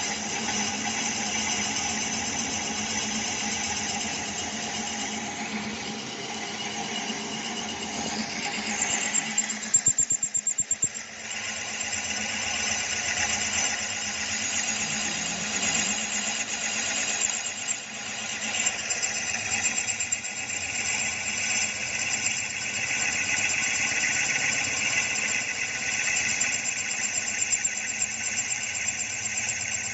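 Drill machine running as its bit cuts a 21 mm hole through a metal bracket strip: a steady machine hum with a high-pitched whine. About ten seconds in, a loud rapid chatter lasts about a second before the steady cutting sound returns.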